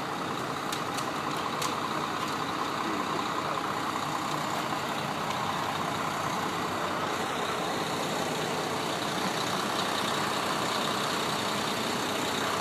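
Heavy truck engine idling steadily, a constant even rumble, with a few faint ticks in the first couple of seconds.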